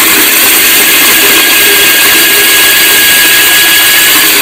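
Electric hammer drill running steadily, boring a pilot hole into concrete, with a steady whine over the grinding noise; it starts abruptly at the opening and runs at a constant speed.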